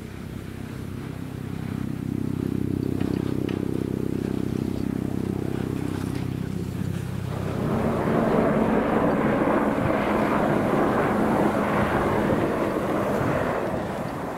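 Riding a GMD Müller T-bar surface lift: a steady low hum from the moving haul rope and tower sheaves, which about halfway through gives way to a louder, rougher rushing noise of skis sliding up the packed lift track.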